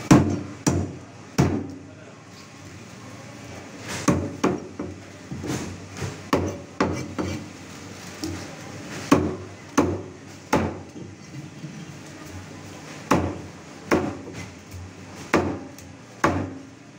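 Cleaver chopping a ribbon fish into steaks on a thick wooden chopping block: about a dozen and a half sharp chops, often in quick pairs or threes, with quieter stretches between.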